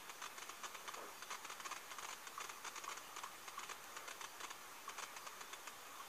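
Faint playback of a night-time bedroom recording through computer speakers: a steady hiss full of small crackling clicks, with a faint distant bang about a second in, the knock the recordist presents as an EVP.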